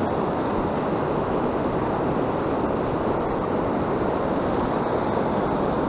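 Steady, even rush of ocean surf breaking on the beach, mixed with wind on the microphone.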